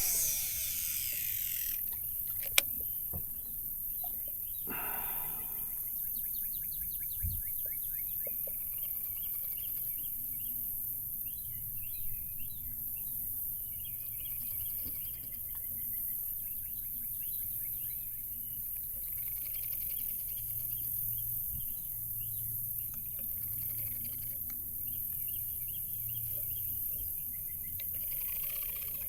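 Birds singing repeated trills of a dawn chorus over a steady high insect hiss. In the first two seconds a fishing reel's spool whirs and falls in pitch as a cast goes out, followed by a sharp click.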